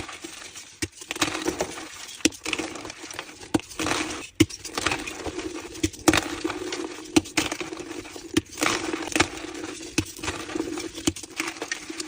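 Reformed gym chalk blocks being crushed by hand, crunching and crumbling with many sharp, irregular cracks.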